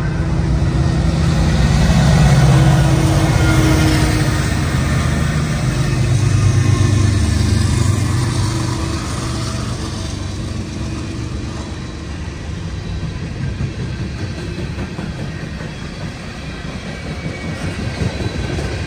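Diesel freight train passing, led by an EMD SD70M-2 and two GE GEVO locomotives. A heavy low engine rumble is strongest for the first several seconds, then eases to the steady rolling of freight cars.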